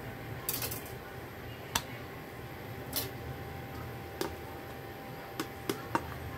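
A knife blade knocking and scraping against an aluminium momo steamer plate as steamed momos are lifted out with it: about seven light, sharp clicks, irregularly spaced, over a low steady hum.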